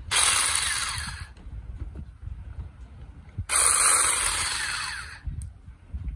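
Cordless mini chainsaw running free in two short bursts about two seconds apart, each starting sharply and dying away, its chain just oiled to make it turn smoother.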